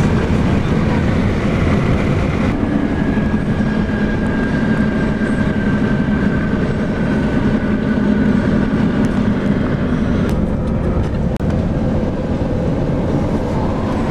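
A car driving at road speed, heard from inside the cabin: a steady, loud rumble of road and wind noise.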